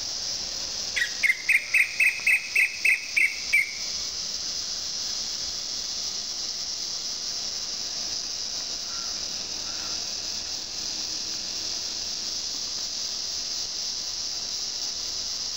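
Steady, high-pitched insect chorus; about a second in, a bird gives a quick run of about ten loud, evenly spaced call notes lasting some two and a half seconds.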